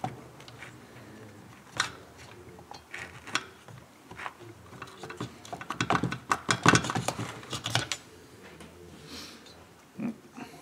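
Irregular clicks and light knocks of metal chainsaw parts being handled as the cylinder is worked down onto the crankcase of a Stihl MS 391, clustering thickly about halfway through.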